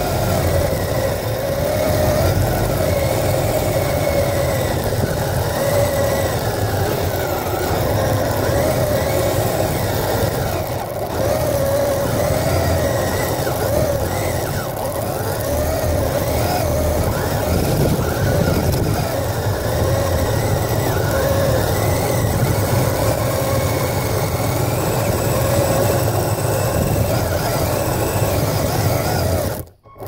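Kyosho Blizzard SR radio-controlled snowcat's electric motor and drivetrain whining as it drives its tracks over snow and gravel. The whine wavers in pitch as the speed changes, heard from a camera mounted on the model, and cuts out briefly near the end.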